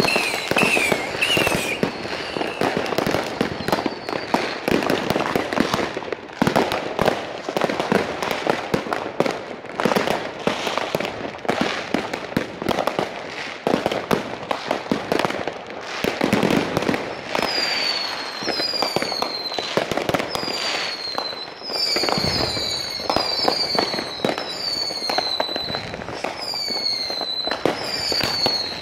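Fireworks going off thick and fast: a dense run of bangs and crackles throughout. From about halfway on it is joined by a string of short whistles falling in pitch, several a second.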